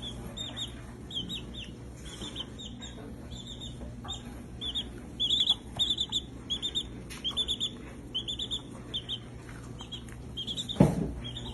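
Baby chick peeping: short high peeps in quick runs of two to five, repeated through the whole stretch. A brief louder low thud comes near the end.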